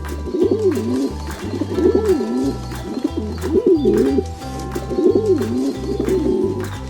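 Pigeon cooing: a run of rolling, warbling coos, about one a second, over background music with steady low notes.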